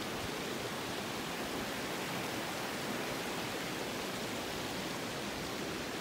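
Steady rushing of a shallow mountain stream running over rocks, fed by the waterfall upstream.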